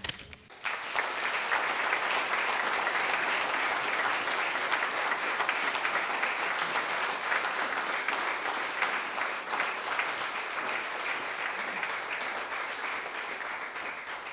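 Congregation applauding, starting about half a second in and easing off slightly near the end.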